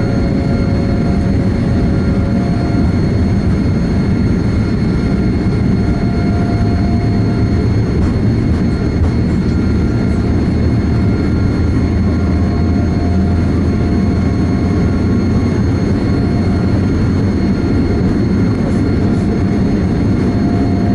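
Boeing 787-8's GEnx-1B jet engines running at high thrust on the takeoff roll, a loud, steady rumble with a faint engine whine, heard from inside the cabin.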